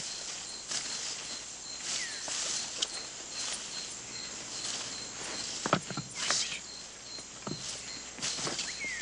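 Jungle ambience: a high insect chirp repeating about twice a second over a steady insect buzz, with footsteps rustling through leaves and brush and a few sharp snaps about six to seven and a half seconds in. Two short falling bird whistles, one about two seconds in and one near the end.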